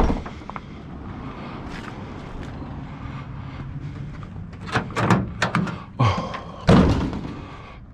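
A vehicle door slams shut with a heavy thump near the end, after a few clattering knocks about five seconds in, over a steady low hum.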